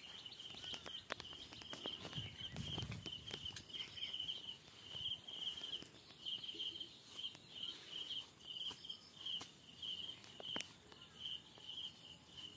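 Insects chirping steadily at one high pitch, about two chirps a second, with scattered faint clicks and a brief low rustle about two seconds in.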